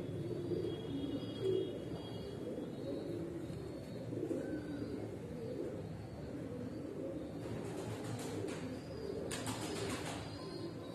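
Domestic pigeons cooing continuously in a loft, with faint high chirps over the top. A short rustling noise comes about a second before the end.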